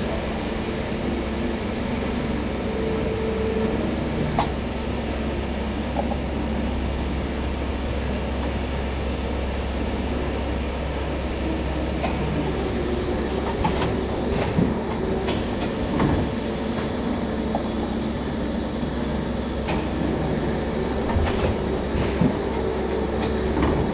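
Rotary cup filling and sealing machine running in a dairy, a steady hum with short clicks and knocks from its moving parts, which come more often in the second half.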